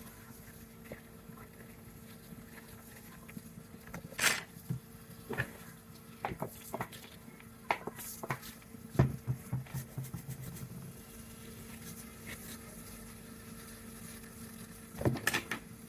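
Faint steady electrical hum from bench equipment, with scattered sharp clicks and taps of small hand tools against a laptop motherboard: one about four seconds in, a cluster between six and nine seconds, and a pair near the end.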